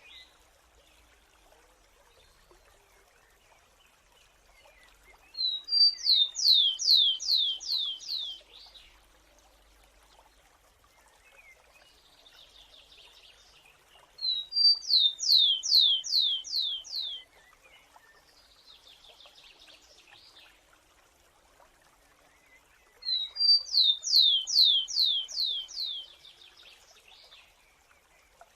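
Grassland sparrow singing three songs, about nine seconds apart. Each song is a short note and then a quick series of about six whistles, each sliding down in pitch. Fainter buzzy notes come in the gaps between songs.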